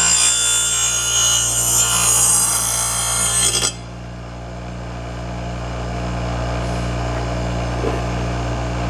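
Steel mower blade being sharpened on an electric grinder. The grinding stops suddenly about three and a half seconds in, and the grinder keeps running with a steady hum.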